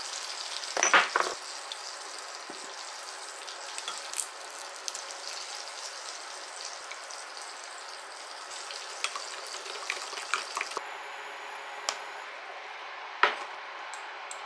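Wooden spoon stirring and clinking against a glass measuring cup as a thick chilli sauce is mixed, with one loud clatter about a second in and lighter clicks later, over a steady hiss. A sharp knock of cookware near the end.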